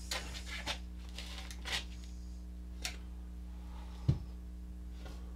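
Paper rustling and crinkling as a sticker's backing is peeled off, in short scratchy strokes, then a single sharp knock about four seconds in as the sticker is pressed onto the wooden wall. A steady low hum runs underneath.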